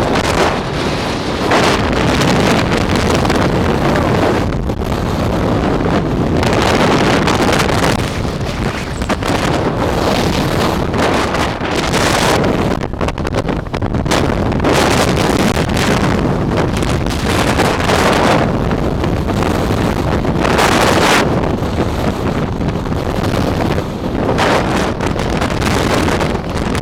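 Hurricane-force wind gusting hard against the microphone: a loud, continuous rush of noise that swells and eases with each gust.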